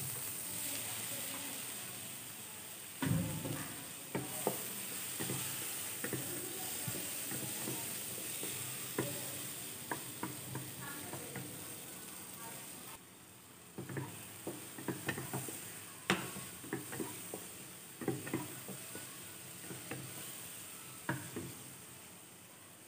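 Onion, garlic and tomato sizzling in hot oil in a nonstick frying pan, with a wooden spatula knocking and scraping against the pan as they are stirred. The sizzle drops off suddenly about halfway through while the stirring knocks go on.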